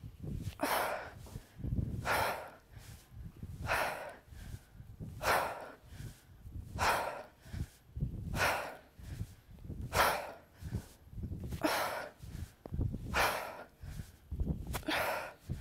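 A woman's short, forceful exhalations, one on each kettlebell swing, evenly paced about every second and a half, ten in all.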